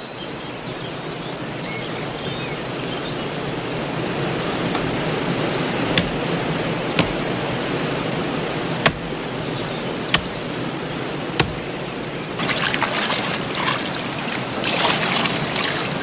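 Rushing water of a stream and small waterfall, a steady hiss that slowly grows louder, broken by a few sharp clicks. About twelve seconds in, louder, uneven splashing and sloshing sets in as people wade through the water.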